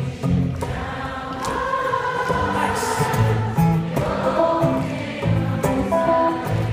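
A concert audience singing a refrain together like a choir, many voices on held notes over an acoustic guitar.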